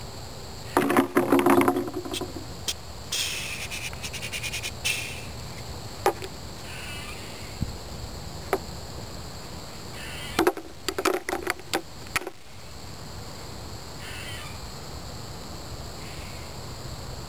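Plastic cooler and a plastic cup of wet espresso grounds being handled: scraping and light knocks of plastic and brass, clustered about ten seconds in. A bird caws about a second in.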